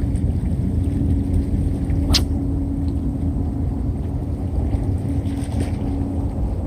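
Steady low rumble with a faint even hum running through it, and one sharp snap a little over two seconds in.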